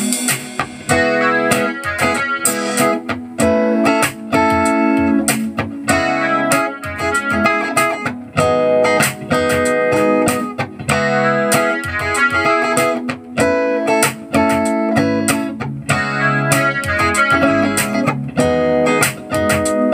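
Stratocaster-style electric guitar played through an amplifier: fast picked melody lines and runs over music with a steady beat and a bass line.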